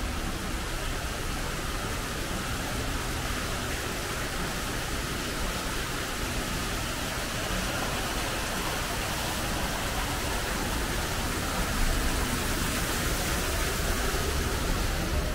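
Steady rushing splash of an indoor artificial waterfall pouring over rockwork into a pool, a little louder in the last few seconds.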